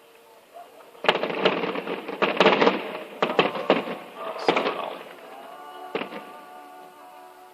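Fireworks going off in a rapid volley of bangs and crackles that starts about a second in and lasts about four seconds, with one more bang about six seconds in, over music playing in the background.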